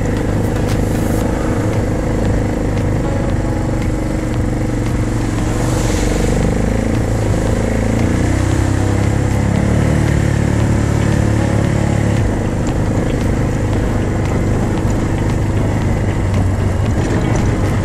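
Off-road vehicle engine running steadily as it drives along a rough dirt trail. Its pitch rises and falls a little in the middle, and there are scattered small knocks.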